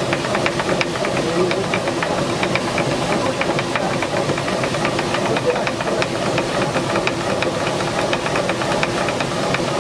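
Traditional water-powered stone mill (ghatta) running: the upper millstone turns with a steady rushing, grinding noise. Over it, the wooden feeder shoe under the grain hopper clatters in a fast, even rhythm against the turning stone.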